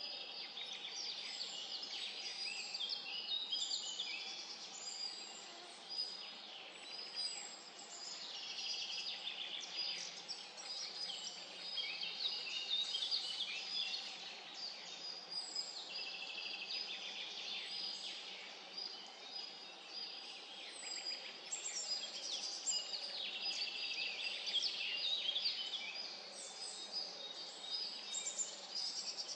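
Woodland birdsong: several songbirds singing at once, a dense overlapping chorus of high chirps and quick trills.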